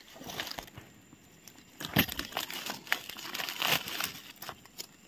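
Dry leaf litter rustling and crackling in irregular bursts as wild mushrooms are pulled from the forest floor and put into a basket, with one sharper crackle about two seconds in.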